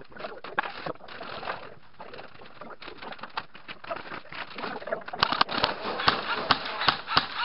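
Airsoft guns firing in a quick series of sharp clacks, about three a second, starting about five seconds in. Before that there are quieter scattered clicks and scuffs of movement.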